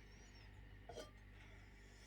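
Near silence, with one short faint sound about a second in.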